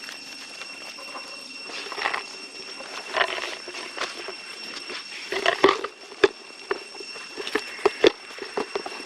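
Monkeys giving a few short squealing calls, the loudest cluster a little past the middle, with several sharp clicks and taps after it; a steady high whine runs underneath.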